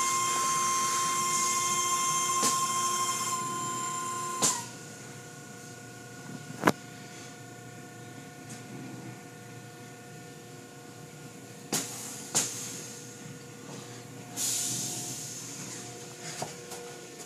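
Automatic car wash machinery running: a steady high-pitched whine with a hiss of water spray for the first four and a half seconds, cutting off abruptly. After that a quieter steady hum with a few sharp knocks, and a short burst of hiss near the end.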